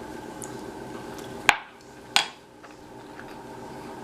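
Two sharp clicks of cutlery against a dish, about a second and a half and two seconds in, the first the louder, over a steady low room hum.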